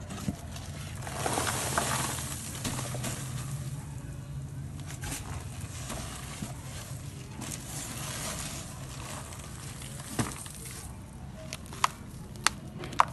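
Dry grey sand-cement crumbled by hand into a bowl: a soft sprinkling, rustling hiss, strongest between one and two seconds in, then several sharp clicks near the end.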